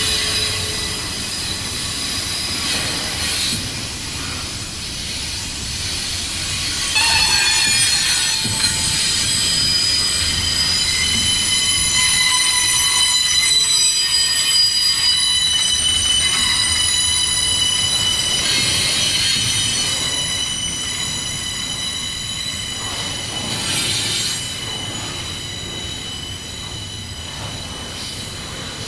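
Railcar wheels squealing against the rails as a train rolls past: several steady high-pitched squeals at once that swell and fade, over the low rumble of the train.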